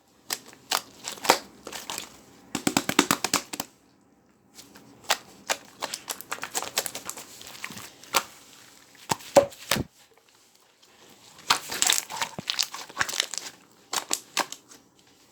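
Air bubbles crackling and popping in quick clusters, in bursts of a second or two with short pauses between them.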